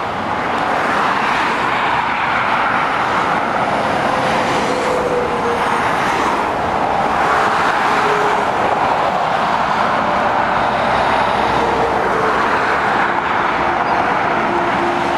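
Road traffic passing steadily: heavy lorries and cars, with a continuous tyre roar and now and then a faint drawn-out engine note from a passing vehicle.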